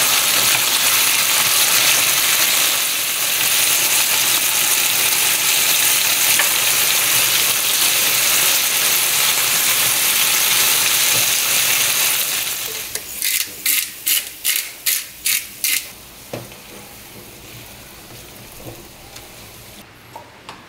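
Egg and vegetables sizzling in a frying pan as they are stirred, then about eight quick grinding twists of a pepper mill over the pan, followed by a few light clinks.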